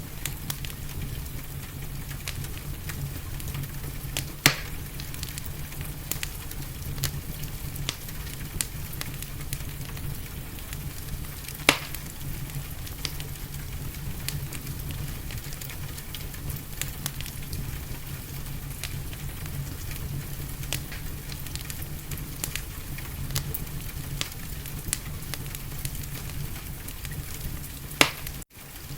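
Wood fire in a fireplace crackling over a steady hiss and low rumble, with frequent small snaps and three loud pops: about 4 s in, near 12 s, and near the end.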